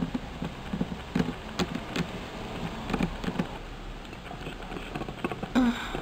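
Steady rain with scattered light drops and taps. A brief voice sound comes near the end.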